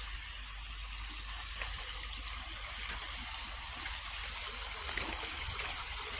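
Rain runoff water flowing out of an 18-inch culvert pipe, a steady trickling rush.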